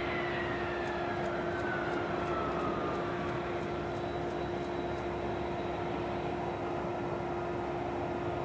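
F-35B Lightning II's F135 jet engine running as the fighter rolls out along the runway after landing. It is a steady drone with a high whine that falls in pitch over the first three seconds.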